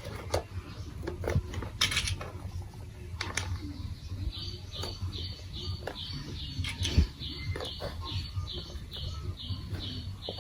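Plastic marble-run blocks and marbles clicking and clacking in scattered knocks. From about four seconds in, a regular series of short high chirps, about three a second, runs alongside.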